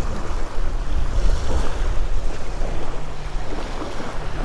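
Small waves washing up and breaking on a sandy shore, with wind buffeting the microphone as a steady low rumble.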